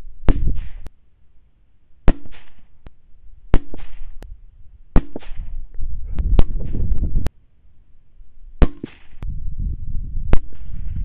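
A quick series of rifle shots, about seven sharp cracks roughly a second and a half apart, each followed by a brief rush of noise, with a low rumble in between.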